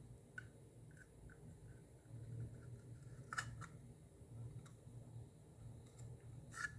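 A few faint, light clicks and taps of a plastic phone-charger case being handled, over a low steady hum.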